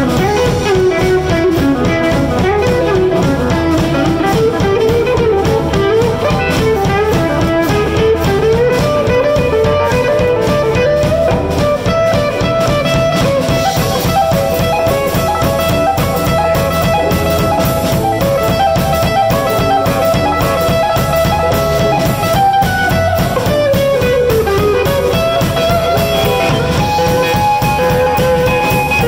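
Live blues band playing an instrumental passage: electric guitar and drum kit over a steady bass, with a lead line of long held notes that bend up and down in pitch.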